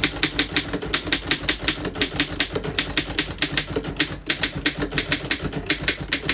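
1911 Underwood No.4 desktop typewriter being typed on: a fast, even run of sharp typebar strikes, about seven a second. The keys strike cleanly, none skipping or sticking.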